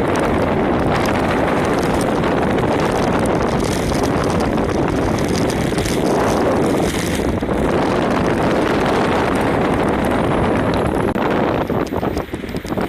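Heavy rain falling, a loud steady hiss that thins out and turns uneven near the end.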